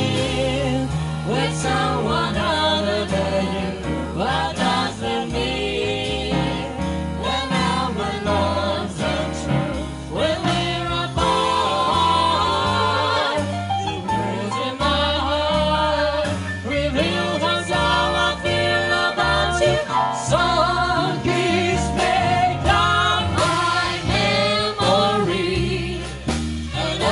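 Small live jazz band with keyboard playing a jazz standard. A wavering lead melody line with vibrato runs over bass notes stepping along underneath.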